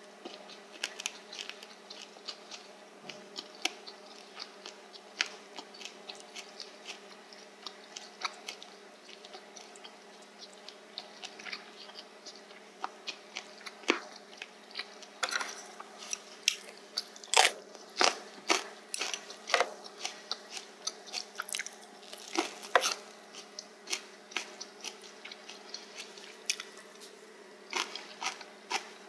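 Close-miked chewing of spicy stir-fried pork cartilage (odolppyeo), with irregular sharp crunches as the cartilage breaks between the teeth. The crunches are loudest and most frequent in the middle stretch.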